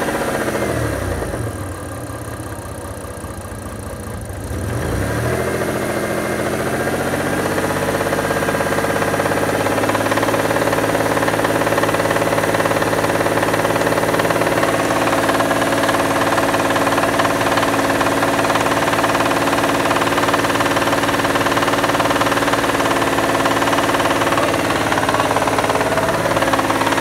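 Mitsubishi Diamante's warm 6G73 GDI V6 engine dropping back to idle, then revved up about five seconds in and held at a steady raised speed for some twenty seconds before falling back near the end. It carries an engine knock that the owner fears may mean a major overhaul.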